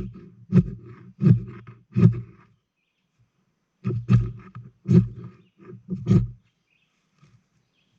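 Steel Bowie knife blade scraping shavings off a magnesium block in short rasping strokes, about one every two-thirds of a second. Four strokes come near the start, then a pause of about a second and a half, then about five more.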